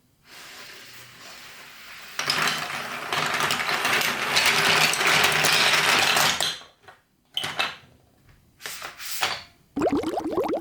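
Marbles rolling and clattering down a building-block marble run. A dense rattle of many clicks starts about two seconds in and stops at around six and a half seconds. Short rattles follow, and near the end there is a fast, rhythmic run of rising pitched ticks.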